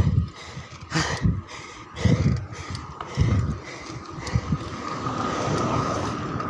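A cyclist's heavy, labored breathing on a steep uphill climb: hard exhalations about once a second, one sharp gasp about a second in. A steady hum swells in the second half.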